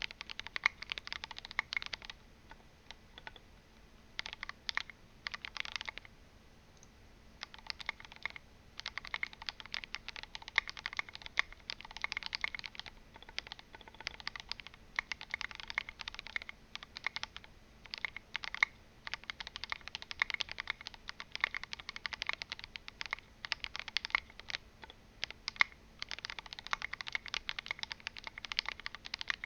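Typing on a mechanical keyboard with lubed, filmed linear Gateron Yellow switches in an aluminum case with an aluminum plate and case foam: fast runs of muted keystrokes, with short pauses about three seconds in and between six and eight seconds.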